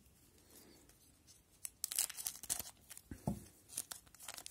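Foil wrapper of a hockey card pack crinkling and tearing in the hands, in a few short rustling bursts after a quiet first second and a half.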